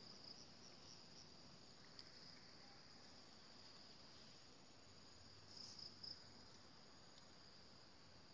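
Faint, steady chorus of insects trilling, high-pitched and a little louder about five and a half seconds in.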